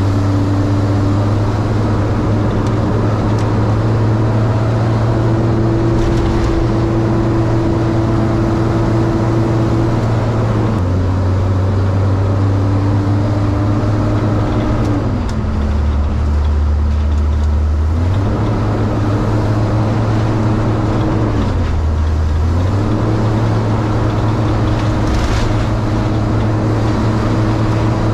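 Delivery step van's engine running under way, heard from inside the cab over tyre and road noise; its drone steps down in pitch a few times around the middle and climbs back as the van slows and picks up speed on the winding road.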